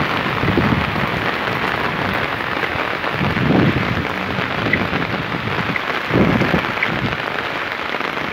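Heavy rain pouring onto a concrete street and parked cars, a dense steady hiss. Three brief low rumbles rise under it, about half a second, three and a half and six seconds in.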